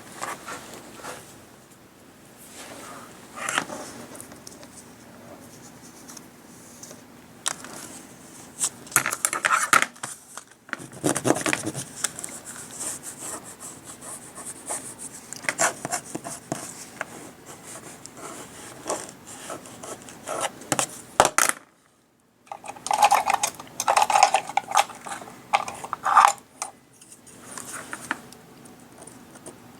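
Hands rubbing and handling craft materials on a work surface: irregular scraping and rubbing strokes with scattered light taps and clicks, broken by a brief silence a little past the middle.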